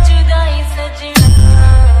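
Bass-heavy DJ sound-check remix music: a melody over deep sustained bass, with a hard bass hit and a falling bass sweep about a second in.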